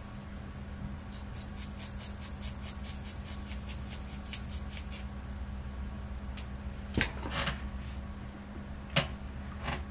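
Plastic razor comb (hair-cutting comb) clicking in a quick run of light ticks, about six a second, for roughly four seconds as it is worked through hair. A few single soft knocks follow later, over a steady low hum.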